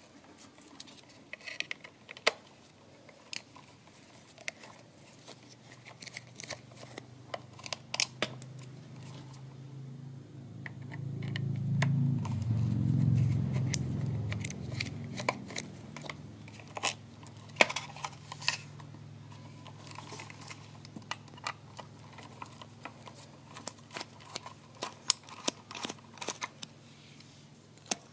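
Scattered clicks and light clatter of hand tools and small scooter parts being handled as the electric scooter's controller is opened up. A low hum swells and fades away in the middle.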